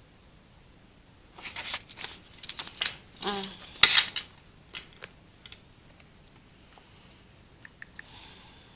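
Desk handling noises from working in a paper planner: irregular rustling of paper and light clicks, with one sharper click about four seconds in, then a few faint ticks.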